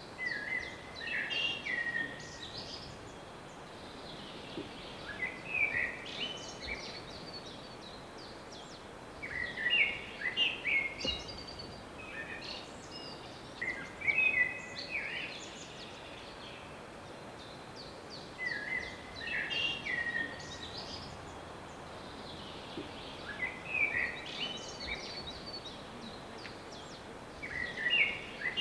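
A songbird singing short twittering phrases, repeated every few seconds, over a steady outdoor background hiss.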